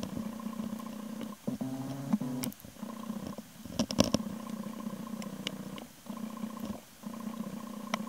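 A snorkeler's breathing picked up underwater: a steady hum that breaks off and starts again every second or two, with a few sharp clicks, the loudest about four seconds in.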